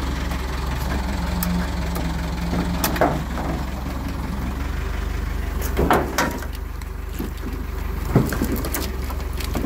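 Forklift engine idling steadily, a low rumble, with a few sharp knocks about three, six and eight seconds in.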